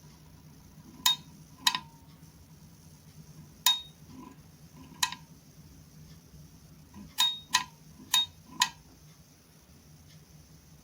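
A series of eight short, sharp clicks at irregular intervals, each with a brief ringing tone, over a faint steady hum.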